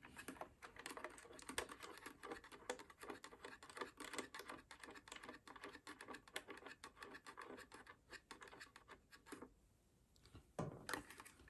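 Faint scraping and clicking of a floodlight security camera's plastic housing being handled and turned over in the hands, a quick run of small taps and scrapes that pauses shortly before the end.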